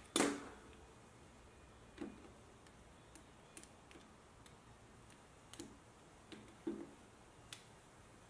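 Clamps and a metal square being handled on a plywood panel: one sharp knock just after the start, then scattered lighter knocks and clicks as a small one-handed clamp is fitted.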